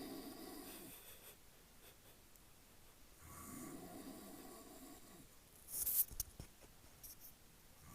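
A man snoring in his sleep: one snore tails off just under a second in and another comes about three seconds in, lasting a couple of seconds. About six seconds in a brief, loud scratchy noise is the loudest sound.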